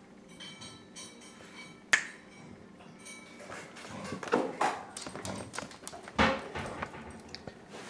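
A dog coughing in a run of short, sharp hacks, loudest about four and a half and six seconds in, after a single sharp click near two seconds.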